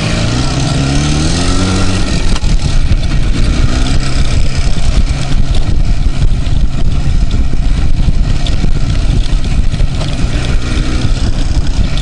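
IZh motorcycle's two-stroke engine under way on a dirt trail, revs rising over the first two seconds, then held at higher revs under a loud, rough, fluttering noise.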